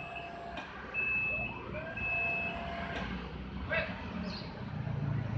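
Electric scissor lift's warning alarm giving short, high beeps about once a second, which stop about halfway through. A low engine rumble grows near the end.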